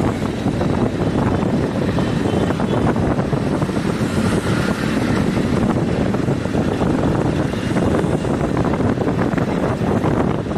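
Steady rushing wind on the microphone mixed with the engine and road noise of a moving motorbike.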